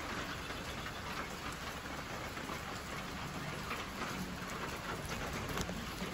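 Rain falling steadily: an even hiss with faint scattered ticks of drops.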